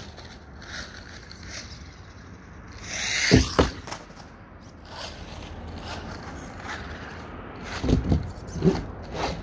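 Small RC car driving on concrete, its electric motor whirring and tyres scraping, with a burst of sound and two hard knocks about three and a half seconds in. Near the end comes a cluster of thumps as it bangs onto and climbs a plastic ramp.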